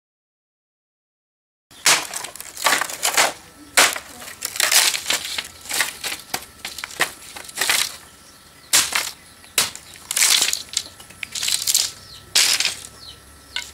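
Bamboo pole or stick scraping and scuffing over bare earth in a string of irregular rough strokes, starting after nearly two seconds of silence.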